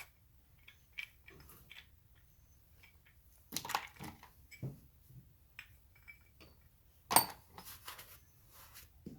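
Scattered clinks and knocks of small metal winch parts being handled and set down, with the loudest knocks about three and a half and seven seconds in.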